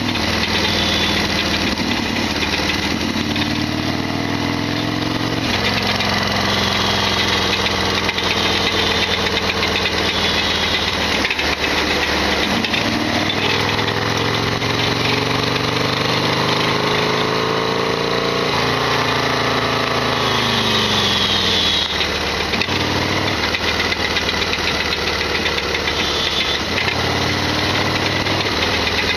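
Modified Harley-Davidson Sportster XL1200R's air-cooled V-twin running on the move, its pitch rising and falling several times with throttle and gear changes. Under the engine note runs the loud rattling noise that the owner calls a big abnormal noise.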